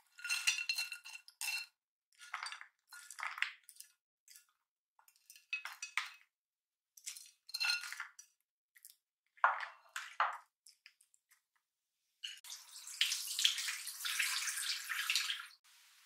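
Chopsticks scraping and clinking against a pan in short bursts as sticky stir-fried dried shrimp is pushed out into a plastic container, a few strokes ringing briefly. Near the end comes a steadier rasping noise lasting about three seconds.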